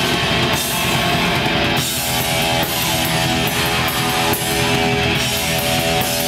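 Live black metal band playing: dense distorted electric guitars with drums and steady cymbal strokes, loud throughout.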